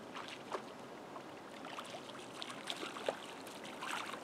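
Small irregular splashes, drips and trickling of water at the water's edge.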